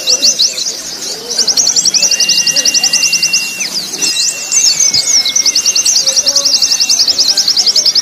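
Several white-eyes (pleci) singing together in a mixed training recording. The song is long, very fast trills of high chirps, one run after another, over long steady whistled notes.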